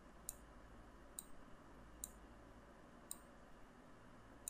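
A handful of faint, irregularly spaced computer mouse clicks over near silence, made while a wire is drawn in a circuit-simulation program.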